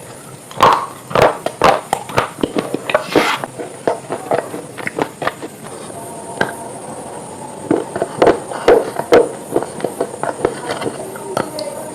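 A crunch sound effect: a quick, irregular run of sharp crunches, several a second, bunched in loud clusters.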